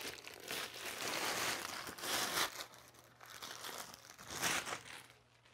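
Clear plastic shrink wrap being torn and peeled off a skateboard deck, crinkling loudly for the first two and a half seconds. A short burst of crumpling follows near the end as the wrap is bunched up.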